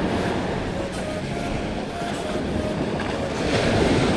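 Surf washing up a sandy beach with wind buffeting the camera microphone, a steady rushing noise that swells as a wave breaks near the end.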